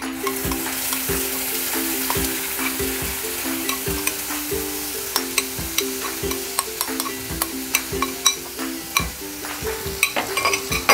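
Water-thinned spice paste going into hot oil with cumin seeds in a non-stick pan: loud sizzling with scattered crackles and pops, starting suddenly as the paste goes in. The water in the paste spattering in the very hot oil makes the sizzle. Soft background music plays underneath.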